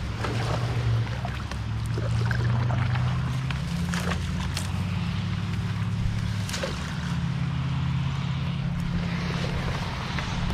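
A paddle dipping and stroking through shallow marsh water from a small paddle craft, with splashes and drips scattered through. Low sustained background music changes pitch every few seconds underneath.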